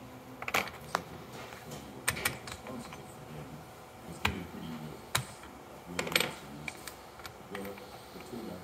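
Bicycle saddle clamp hardware (bolt, nut and clamp plates for a straight seatpost) being unscrewed and worked off the saddle rails by hand: a scattered series of sharp metal clicks and small clinks.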